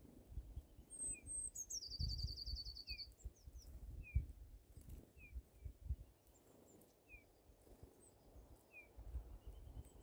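Small songbirds calling, faint: short downward chirps repeat about once a second. About two seconds in, a bright, fast, high trill sounds for about a second. A low outdoor rumble runs underneath.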